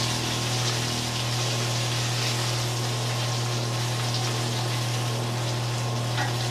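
Sea scallops sizzling in butter in a hot sauté pan as they are lifted out with tongs, a steady hiss over a constant low hum.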